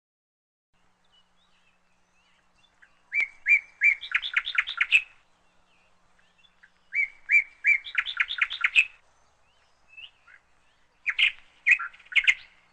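A songbird singing three short phrases, each two separate chirps followed by a fast run of about six notes, with a pause of a couple of seconds between phrases.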